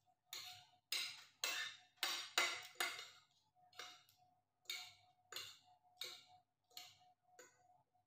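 Metal spoon and fork scraping and clinking on a ceramic plate while gathering food, a run of short scrapes about two a second, loudest in the first half. A faint steady hum lies underneath.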